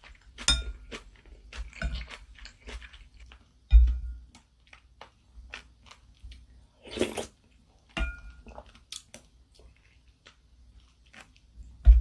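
Close-miked eating sounds: a wooden spoon and chopsticks clinking against a ceramic bowl of ramen, several clinks with a brief ring, with chewing throughout. A slurp from the spoon about seven seconds in, and heavier bumps about four seconds in and at the end.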